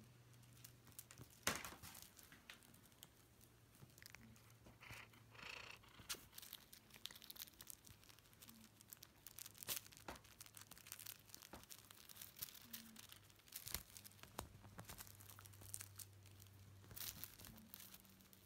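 Faint, irregular rustling and scratching of kittens scrambling and pawing on a fleece blanket as they tussle with a feather wand toy, with one sharp tap about a second and a half in. A low steady hum runs underneath.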